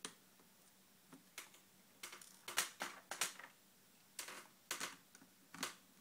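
Irregular light clicks and taps of a mini screwdriver and a tiny screw against the netbook's plastic screen lid as the screw is backed out and lifted away, about a dozen spread unevenly, some in quick pairs.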